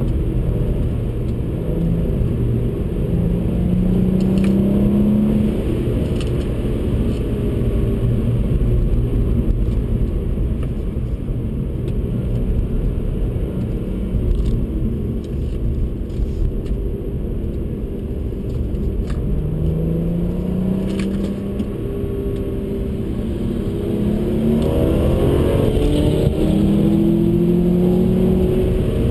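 BMW 135i's turbocharged N55 inline-six driving hard, heard from inside the cabin over steady tyre and road noise. The engine note climbs in pitch several times as the car accelerates, most strongly near the end.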